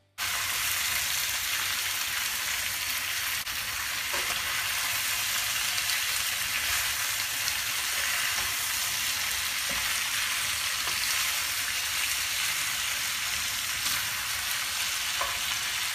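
Chicken pieces and thick-cut onion sizzling steadily in a frying pan over high heat while being stirred by hand, with a few faint clicks. They are being fried down (bhuna) with the onions.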